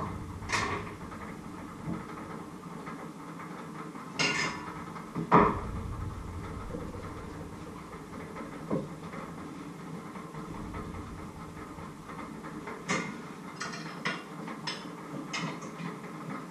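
Kitchenware being handled: stainless steel bowls and pots knocking and clinking, with one louder knock about five seconds in and a quick run of clinks near the end. A low steady hum underneath drops away about ten seconds in.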